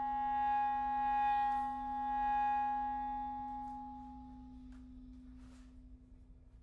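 Clarinets sustaining two long held notes, one low and one high. The high note swells and then stops about four and a half seconds in, leaving the low note to fade softly.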